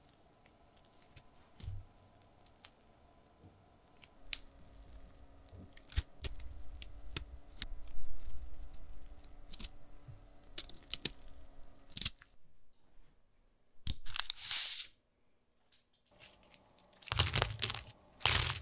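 Mashed potato being squeezed from a piping bag onto parchment paper: soft squishing, with the bag rustling and small clicks. A brief rustle comes about two thirds through, and near the end there are crisp crackling crunches as the baked potato puffs are handled on a wooden board.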